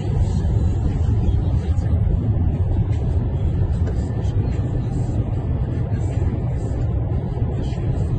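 Steady low rumble of vehicle engines and road noise, heard from inside a car's cabin.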